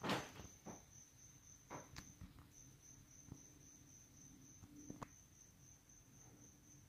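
A faint, steady high-pitched pulsing trill, like an insect, that breaks off briefly about two seconds in. A sharp click opens it, and a few softer clicks follow.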